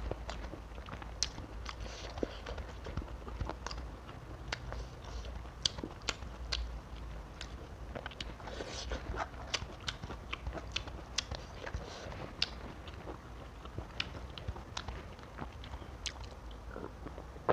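Close-miked chewing and mouth sounds of someone eating fried tilapia and raw vegetables by hand, with many sharp wet clicks and small crunches.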